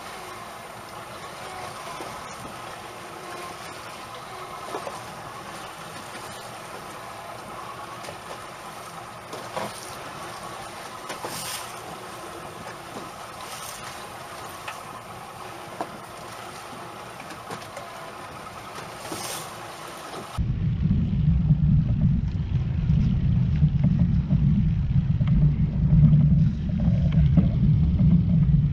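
Steady wind-and-water noise aboard a small fishing boat at sea, with a few brief knocks. About twenty seconds in it switches abruptly to a much louder, fluctuating low rumble.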